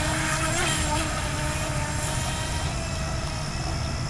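Brushless electric motor of a radio-controlled model whining steadily as the model skims across water, with small wavers in pitch in the first second.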